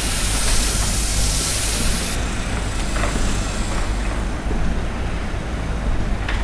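Hose-fed paint spray gun hissing steadily as it sprays road paint through a stencil. The hiss cuts off about two seconds in, giving way to a duller steady noise with a low hum.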